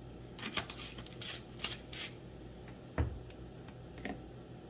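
A plastic shaker bottle of garlic seasoning is shaken several times in quick succession, its granules rattling and sprinkling onto meat on a foil-lined sheet pan. About three seconds in there is a single hard knock as the bottle is set down, then a few light clicks.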